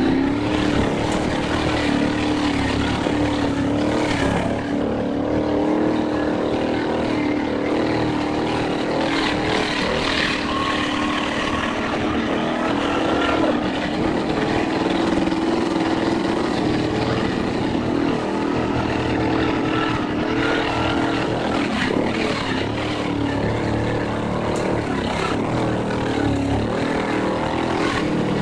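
Motorboat engine running steadily at cruising speed, a constant hum with a slight waver in pitch, over a continuous rush of wind and water.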